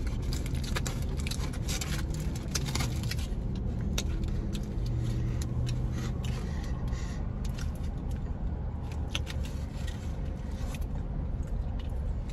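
Aluminium foil wrapper crinkling and rustling in quick irregular bursts as a burger is unwrapped, over a steady low car-cabin hum.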